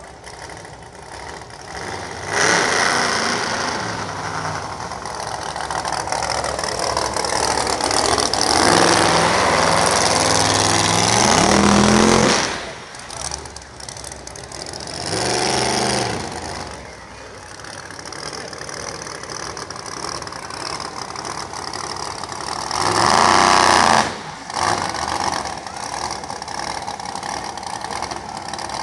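Monster truck engine revving hard in repeated loud surges as the truck drives up onto and over a car. The longest rev, about ten seconds in, climbs steadily in pitch; shorter bursts follow, with a lower steady engine note between them.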